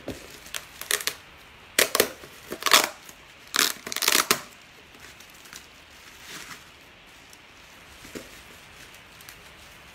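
Bubble wrap around a laptop crinkling and rustling as it is handled and pulled open, in several loud bursts in the first half, then only faint handling noises.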